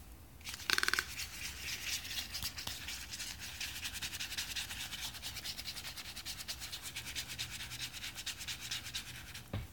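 Fingers rapidly rubbing and scratching a toco toucan's bill: a fast, continuous rasping of skin on the bill. A brief louder rattle comes about a second in, and a soft thump near the end.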